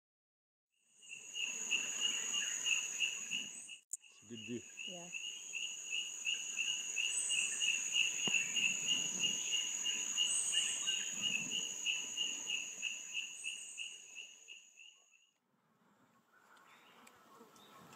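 Insects calling: a steady high whine over a lower, rapidly pulsing trill. The chorus starts about a second in, breaks off for an instant near four seconds, and fades out a few seconds before the end.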